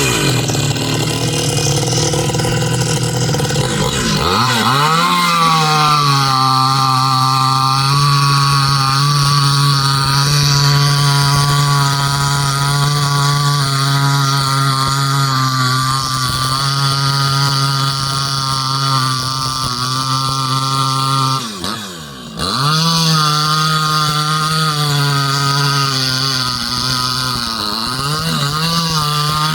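Chinese 62cc two-stroke chainsaw fitted with a home-made muffler extractor, running flat out at high, steady revs. The revs drop sharply and climb back about four seconds in and again around twenty-two seconds, with a smaller dip near the end.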